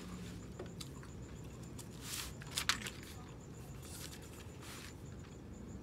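A person chewing a mouthful of salmon croquette and rice, with a few short wet mouth smacks about two to three seconds in, over a low steady hum.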